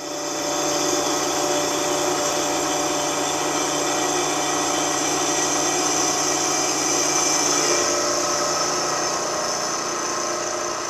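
Vertical milling machine running steadily, its cutter taking a pass across the face of a rough cast iron angle plate casting. The machine's tone shifts slightly about eight seconds in.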